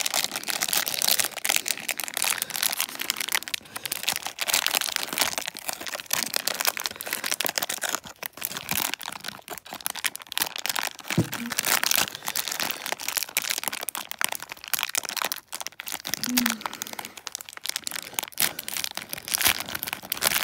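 A plastic blind-bag wrapper crinkling as it is handled and torn open by hand: a constant stream of crackles with sharper snaps in among them.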